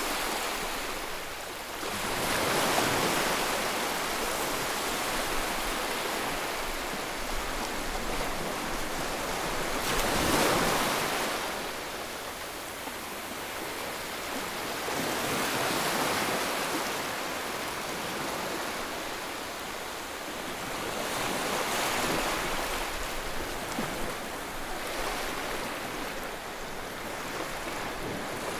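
Rushing floodwater, a steady wash of noise that swells louder every several seconds.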